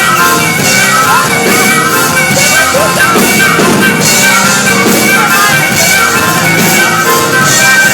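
Live rock band playing loudly, with drums, steady held chords and a singing voice sliding in pitch.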